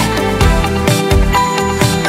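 Background music with a steady beat, about two strong low drum hits a second, under held notes.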